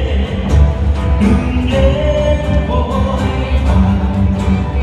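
A live band plays amplified through a PA system, with a lead vocal sung over strummed acoustic and electric guitars and a steady beat from a cajón.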